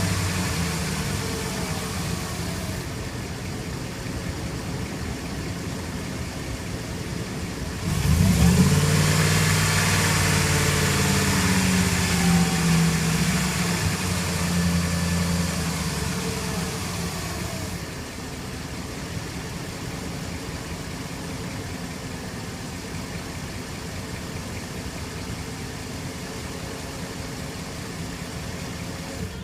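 2006 Jeep Commander's 4.7 L SOHC V8 idling steadily. About eight seconds in it revs up sharply, and the pitch falls back over the next few seconds. It runs a little louder for several seconds before settling to a steady idle.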